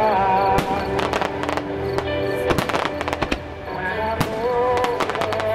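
Aerial firework shells bursting in quick volleys of sharp bangs and crackles, over loud music with a wavering melody.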